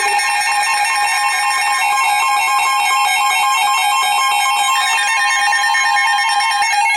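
Several weather alert radios alarming at once: the steady NOAA Weather Radio warning alert tone with the radios' own pulsing alarm beeps over it. The steady tone stops shortly before the end. It is the alert that heralds a newly issued severe thunderstorm warning.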